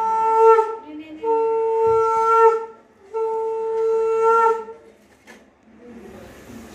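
Conch shell (shankh) blown in three long, steady blasts with short breaths between, marking the tying of the rakhi; the last blast ends about five seconds in.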